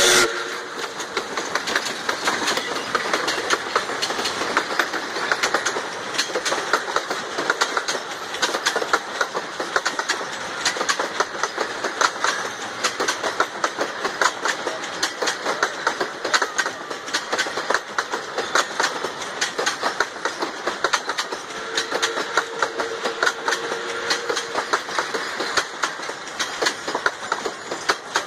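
Train running, its wheels clicking rapidly and steadily over the rails, with a faint held tone for a few seconds past the middle.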